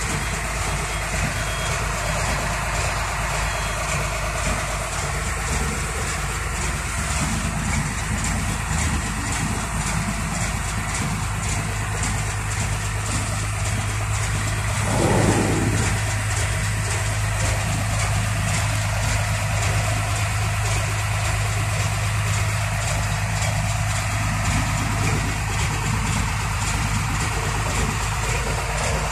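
Hino tronton truck's diesel engine idling steadily, with a brief louder swell about halfway through.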